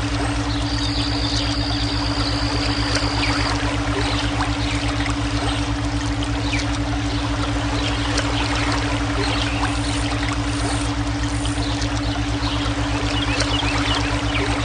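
Running water, a steady splashing and trickling, layered with a steady low electronic drone from a brainwave tone track. A thin high steady tone sounds for about three seconds near the start.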